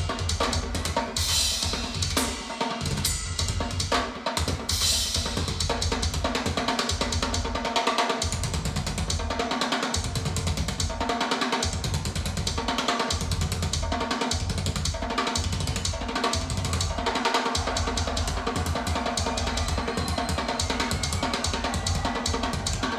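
Instrumental stretch of a song driven by drum kit and bass guitar, with a steady beat and heavy bass. It is played back through Piega Premium 501 Wireless Gen 2 loudspeakers and picked up by a Shure MV88+ microphone in the room.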